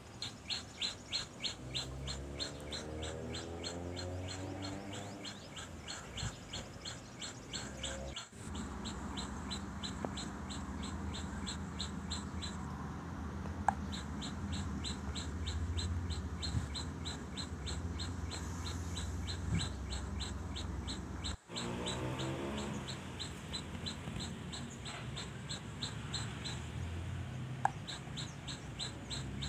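Birds calling outdoors, including a rapid, evenly repeated high chirp at about four a second and some lower drawn-out calls, over a low steady hum.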